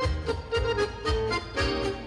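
Accordion-led polka music with a fast, steady beat.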